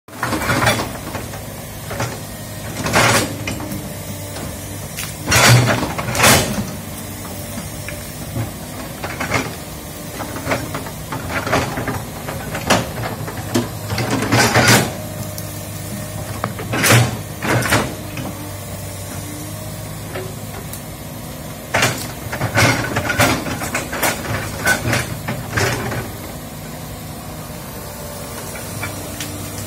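Komatsu hydraulic crawler excavator's diesel engine running steadily while the bucket pushes through brush and small trees, with repeated sudden loud cracks and crashes of wood snapping and falling. The cracks come every second or few seconds and stop about four seconds before the end.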